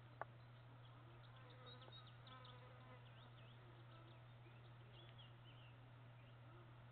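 Near silence: a steady low hum, with one sharp click just after the start and faint short high chirps here and there.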